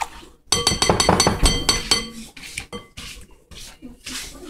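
Wire whisk beating eggs and milk against a glass bowl. Quick, clinking strokes start about half a second in, then give way to slower, scattered taps.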